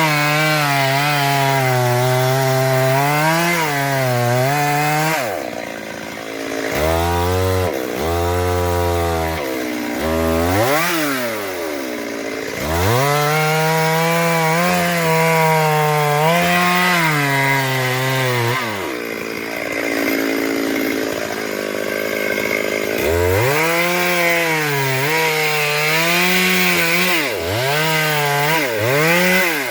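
Chainsaw cutting into a silk cotton (simal) tree. Its engine pitch wavers as the chain bites, and the revs drop sharply and climb back about five times, as the saw is eased off and throttled up again.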